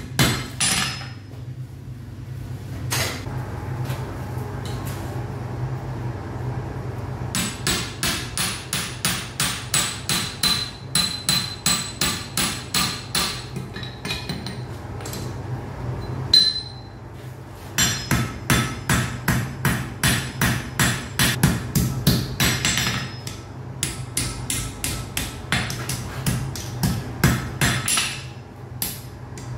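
Blacksmith's hammer striking hot iron on an anvil in runs of quick, even, ringing blows, about two a second, with brief pauses between runs. A steady low hum runs underneath.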